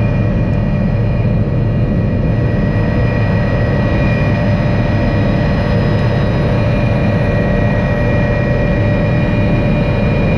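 Helicopter running steadily, a constant loud drone of rotor and engine with a high turbine whine on top.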